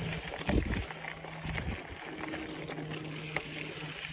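Mountain bike rolling over a dirt trail: tyre noise with scattered clicks and rattles and a thump about half a second in. A low steady hum comes and goes underneath, from an aeroplane overhead.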